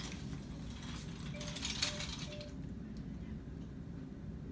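Clicks and rattling from a hospital bed's rail being handled, with three short beeps between about one and a half and two and a half seconds in, over a steady low hum.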